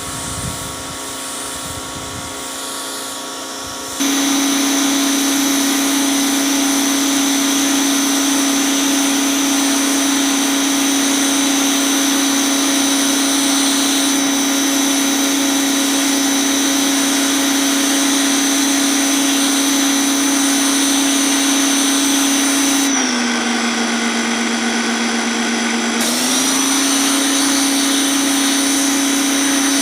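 Pressure washer running with a steady hum and a high hiss of the spray; it gets louder about four seconds in, and about three-quarters of the way through the hum drops in pitch and the hiss cuts out for about three seconds before both come back.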